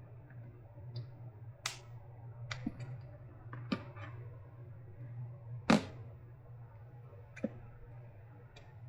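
Scattered light clicks and taps of hand tools and small parts being handled while opening up a battery pack's fuse, the loudest about halfway through, over a steady low hum.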